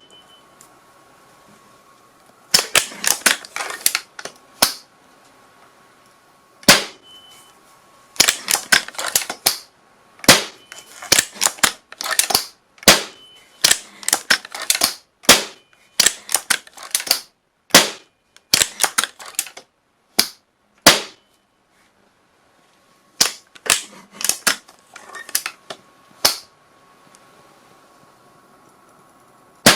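Gunshot sound effects: sharp shots in rapid strings and single reports, in several groups with short pauses between them.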